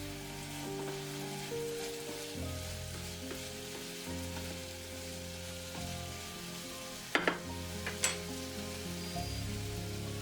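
Food sizzling as it fries in a pan, a steady crackling hiss. A few sharp knocks, about seven and eight seconds in.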